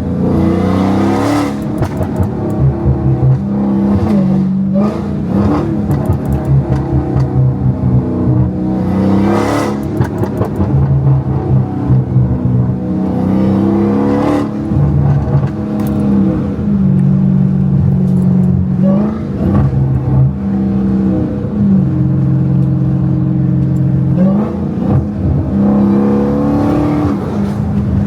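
Supercharged 6.2-litre Hemi V8 of a Dodge Hellcat with a catless exhaust, repeatedly revving up and dropping back off throttle while driving, with crackling exhaust pops in places.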